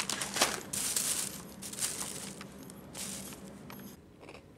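Thin plastic carrier bag and snack packets rustling and crinkling as they are handled, loudest in the first second or two and dying away.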